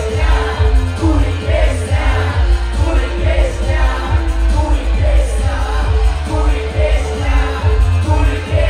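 Pop music with singing over a steady, bass-heavy beat.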